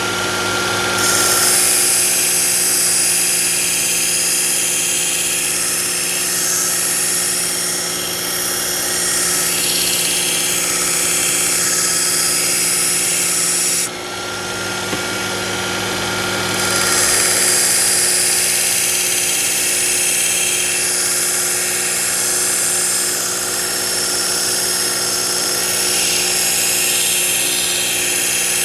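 Work Sharp electric belt sharpener running with a 120-grit belt, grinding the edge of a steel kitchen knife: a steady motor hum under a gritty hiss as the blade is drawn across the belt. The sound cuts off briefly about halfway and starts again.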